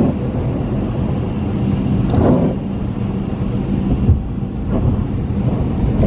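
Steady road noise heard inside a moving car's cabin: engine hum and tyres running on a wet, snowy road. There is a brief swell about two seconds in and a short thump about four seconds in.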